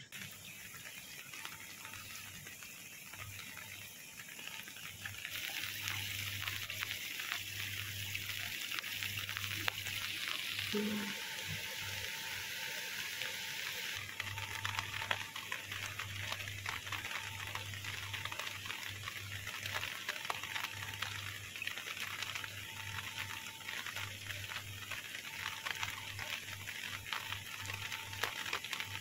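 Steady rain falling on a river and its sandy bank: an even hiss of fine pattering drops, growing denser a few seconds in.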